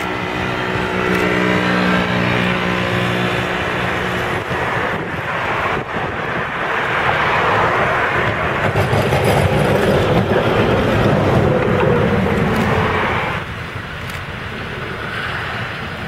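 Electric tram approaching: a hum with several steady tones, then a loud rumble of wheels on rails as it passes close by. About 13 seconds in the sound drops suddenly to the quieter running noise of another tram further off.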